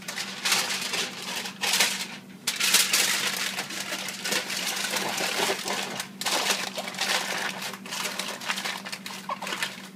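Aluminium foil crinkling and rustling as it is folded and rolled tight around a whole fish to seal a packet, in irregular bursts with brief pauses about two and six seconds in.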